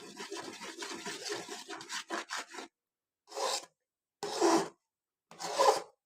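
Quick, scratchy scraping strokes for a little over two seconds, then three separate short scrapes about a second apart.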